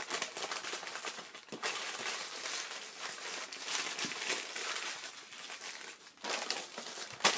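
Brown paper bag being crushed and balled up by hand: a continuous crinkling rustle, with one sharp, loud crackle near the end.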